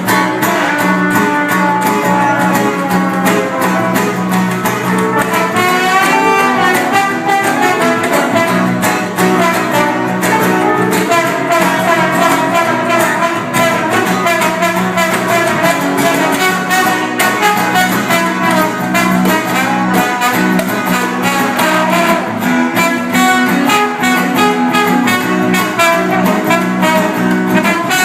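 Band music: an instrumental passage with horns carrying the melody over guitar and a steady beat.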